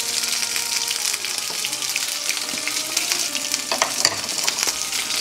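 Hot oil sizzling and crackling around a birria taco shallow-frying in a nonstick pan, just turned over with a wooden spoon, with a few sharper pops about four seconds in.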